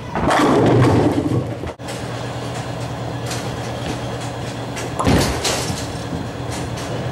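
Bowling pins crashing as the ball drives into them during the first second and a half. After a cut comes the steady low rumble of a bowling ball rolling on a wooden lane, with a loud thud about five seconds in as the next ball is released onto the lane.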